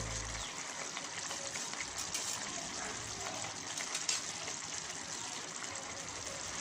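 Thick chicken masala curry simmering in a pan on the stove, a steady sizzling hiss with faint bubbling.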